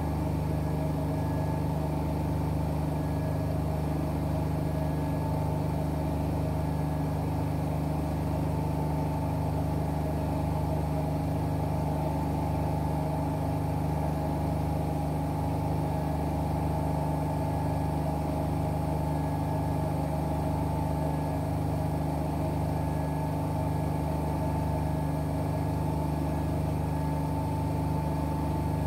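An AEG and a Whirlpool front-loading washing machine running side by side, giving a steady motor hum with fixed low tones and a slow, even pulse about once a second.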